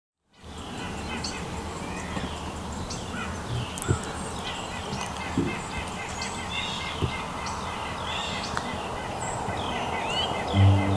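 Outdoor morning birdsong: many birds chirping and calling over a steady background hiss, with a few lower calls among them. Music comes in just before the end.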